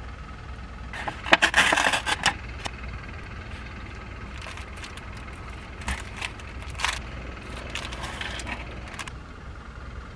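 Crinkling and tearing of plastic and foil packaging from an instant cup-noodle: a loud burst of crackling about a second in lasting about a second, then scattered crackles and clicks as the lid and seasoning sachets are handled and opened. A steady low hum runs underneath.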